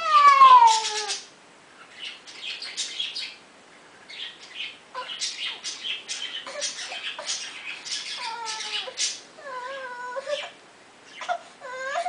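Young baby whining and fussing: a loud, falling wail at the start, then rough, breathy fussing sounds and short, wavering whines.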